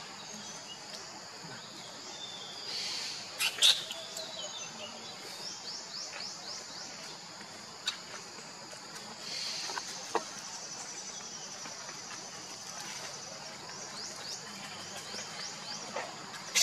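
Steady high-pitched chirping of insects in the forest, in repeated runs of short rising chirps, broken by a few sharp clicks, the loudest about four seconds in.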